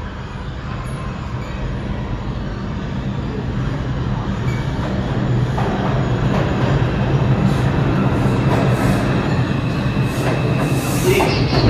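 New York City IRT subway train running through the station, a steady low rumble that grows gradually louder, with high-pitched wheel squeal near the end.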